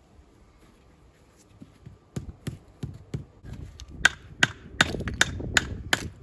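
A run of sharp knocks and taps, about a dozen, starting about two seconds in and coming louder and quicker from about four seconds in.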